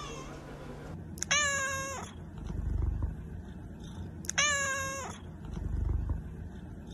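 Domestic calico cat meowing twice, about three seconds apart: two high-pitched, drawn-out whiny meows. Each meow is followed by a muffled low rumble.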